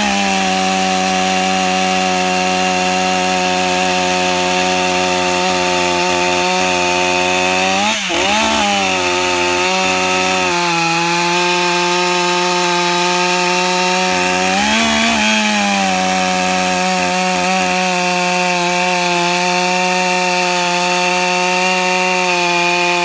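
Stihl 500i fuel-injected two-stroke chainsaw running at full throttle while cutting through a log, a steady high engine note. The pitch wavers and jumps briefly twice, about eight and fifteen seconds in.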